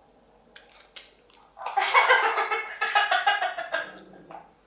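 A man's wordless, strained vocal cry lasting about two seconds, a reaction to the heat of hot chili sauce just tasted from his finger. It is preceded by a couple of soft clicks.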